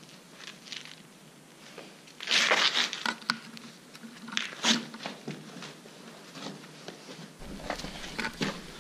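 Shoes scuffing and crunching on loose stone rubble and clothing rustling as people clamber down into a cramped cellar, with a few sharp knocks. The loudest scramble comes about two seconds in.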